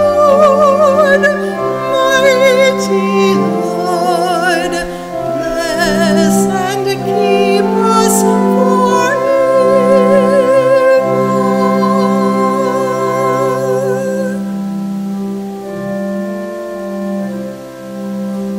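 Organ holding slow chords under a singer with a wide vibrato; the voice drops out about 14 seconds in and the organ sustains chords alone.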